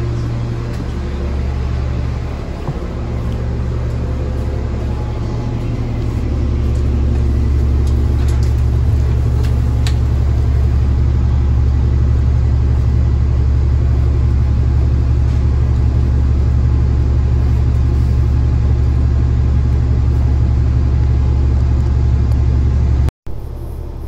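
Orion transit bus engine idling, heard from inside the passenger cabin: a steady low drone that gets louder about six seconds in, with a brief dropout near the end.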